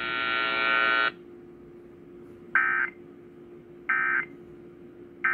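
A steady buzzing tone that cuts off about a second in, then three short, evenly spaced bursts of Emergency Alert System digital data: the end-of-message signal that closes an EAS broadcast, played through a computer speaker. A low steady hum runs underneath.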